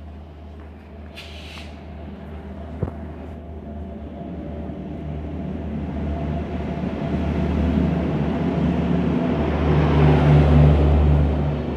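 Shatabdi Express passenger train hauled by a WAP-7 electric locomotive arriving and passing close by. It starts as a low hum and grows into a steady rumble of the locomotive and coaches rolling over the rails, loudest as the coaches go past near the end.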